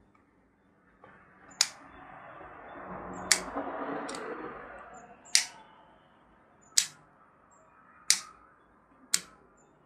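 Sharp clicks, seven in all at uneven intervals, from hands working on a partly disassembled Shimano Grappler baitcasting reel, with a soft rustling hiss from about two to five seconds in.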